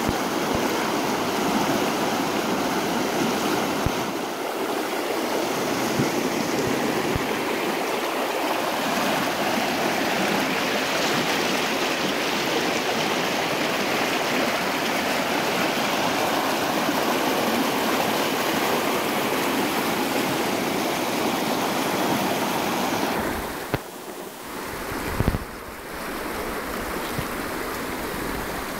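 River water rushing and churning over shallow rapids, a steady loud rush close to the water. About 23 seconds in it drops away sharply for a couple of seconds, with two brief knocks, then returns somewhat quieter.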